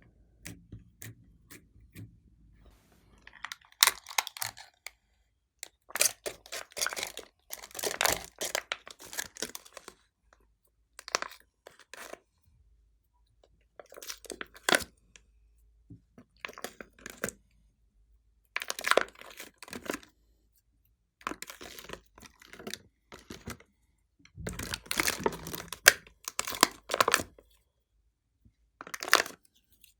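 Glossy slime being worked by hand, sticky clicking and crackling in bursts of a second or two with short pauses between.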